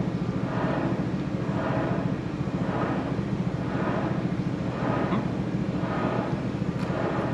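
A loud, steady mechanical drone, like a motor running, with a swell about once a second.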